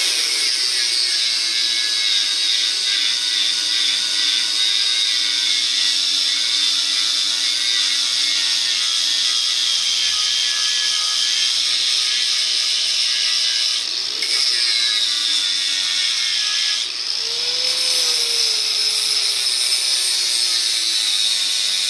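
Electric angle grinder grinding weld beads down flush on a steel truck frame: a steady high whine with the hiss of the disc on metal. The motor's pitch and level dip briefly twice in the second half as the disc's load changes.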